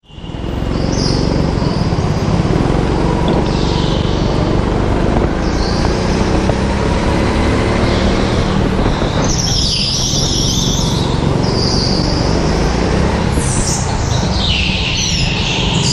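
Go-kart engine running hard, heard from on board the kart, with a dense steady rumble. Short high-pitched tyre squeals on the polished concrete come several times as the kart corners. The sound fades in from silence at the very start.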